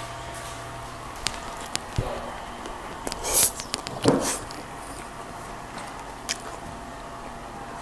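Steady room tone with a faint hum, broken by a few sharp clicks, a knock about two seconds in, and two brief rustling bursts a little past the middle.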